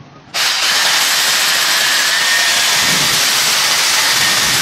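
Electric hammer drill with a masonry bit boring into a concrete wall. It is a loud, steady, hissing grind that starts abruptly about a third of a second in, with a faint motor whine under it.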